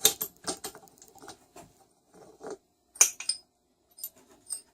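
Metal tools and small-engine parts clinking and clattering as they are handled and set down, a series of separate sharp clinks with the loudest about three seconds in.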